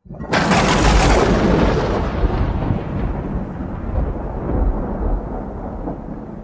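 Thunder: a sudden loud clap that rolls on into a long rumble and slowly fades, then a second clap near the end.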